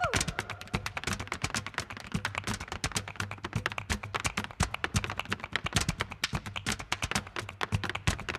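Rapid, uneven clicking, more than ten clicks a second, over a steady low hum. A short swish falling in pitch comes right at the start.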